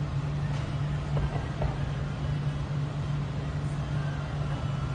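Steady hum of road traffic, with a few faint distant firework pops in the first two seconds.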